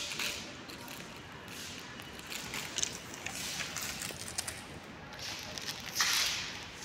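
Faint rustling and a few light clicks of things being handled, with a louder rustle about six seconds in.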